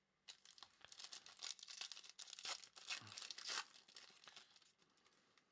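Foil wrapper of a Prizm hobby trading-card pack being torn open and crinkled: a quick run of crackles for about four seconds that thins out near the end.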